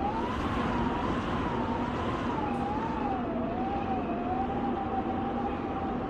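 Wind whistling through a doorway in an underground high-speed rail station, driven by an SRT train passing through at speed: one whistling tone that wavers slowly up and down, then settles and holds steady near the end, over a steady rushing rumble of air and train.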